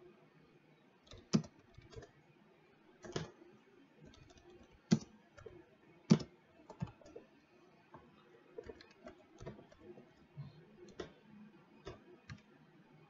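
Typing on a computer keyboard: irregular keystrokes with a few louder key presses in the first half, then a quicker run of lighter keystrokes.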